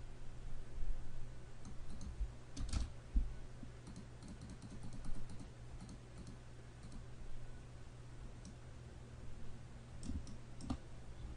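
Scattered clicks of a computer keyboard and mouse, some in quick runs and others alone with pauses between, over a low steady hum.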